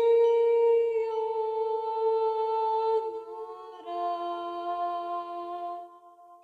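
Slow meditative music of long, steady humming notes, the pitch shifting about three seconds in and the sound fading away near the end.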